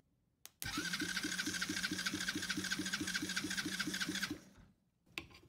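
Electric starter motor cranking a 110cc Chinese ATV's single-cylinder four-stroke engine, powered straight from a battery by a jumper wire. A click as the wire makes contact about half a second in, then about four seconds of steady starter whine with an even chug of about five compression strokes a second, stopping near the end. This is a compression test that reads about 125, a perfect, healthy motor.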